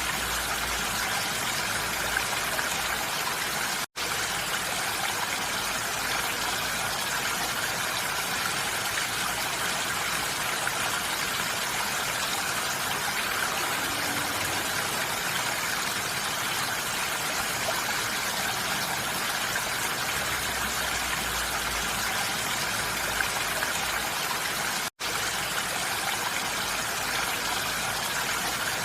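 Steady rain falling on a roof, an even hiss with no distinct drops standing out. It cuts out for an instant twice.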